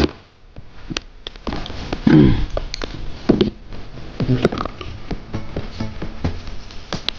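Scattered clicks and knocks of tools and appliance parts being handled on a workbench, with a short sound falling in pitch about two seconds in.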